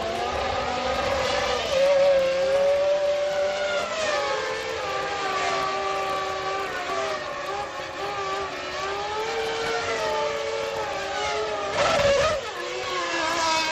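Several 1999 Formula One cars' V10 engines running, their pitch rising and falling, with more than one engine heard at once. A brief, louder burst about twelve seconds in.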